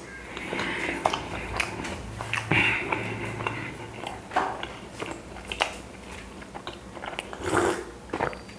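A person chewing and biting chapati with close, wet mouth noises and irregular small clicks and smacks.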